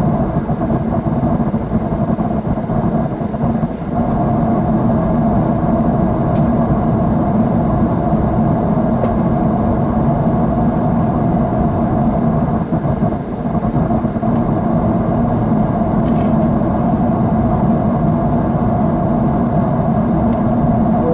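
Jet airliner cabin noise in flight: the steady drone of the engines and rushing air, a deep, even rumble with a low hum in it.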